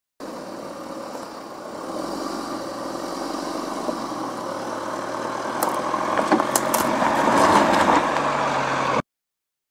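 Jeep Compass engine running at low speed as the SUV crawls over rocks, growing louder partway through. In the second half, tyres crunch and crackle over loose stones and gravel. The sound cuts off suddenly near the end.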